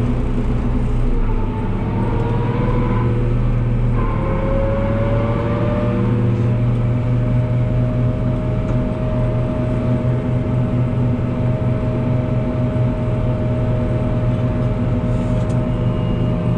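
New Holland TM165 tractor driving on a wet road, heard from inside the cab: a steady engine drone, with a whine that rises in pitch twice in the first six seconds and then holds at one pitch.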